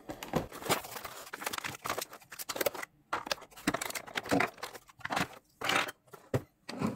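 Unboxing a mini 3D printer: cardboard and plastic packaging rustling and crinkling in irregular bursts, with scrapes and light knocks as plastic parts are lifted out of the box and set down.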